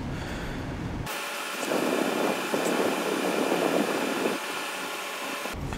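Cast iron box bed casting for a Stuart 10V steam engine being rubbed by hand on wet 400-grit wet-dry paper over a flat surface plate, a gritty scraping, to take out milling marks.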